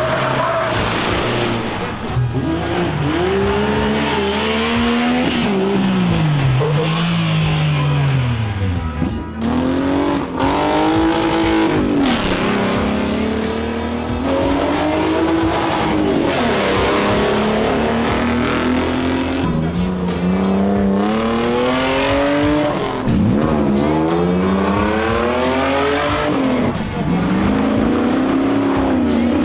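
Off-road rally car's engine revving hard, its pitch repeatedly climbing and dropping as it accelerates and shifts or lifts off, several times over.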